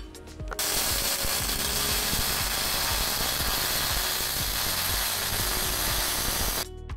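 MIG welding arc crackling steadily, starting about half a second in and cutting off sharply near the end as the torch trigger is released.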